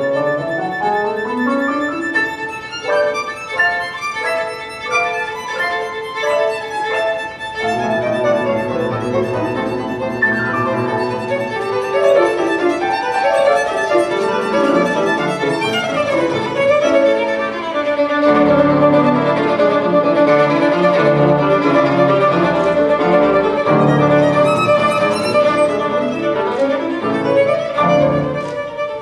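Instrumental background music: a melody of quick running notes, with lower accompanying notes joining about eight seconds in and the music growing fuller past the middle.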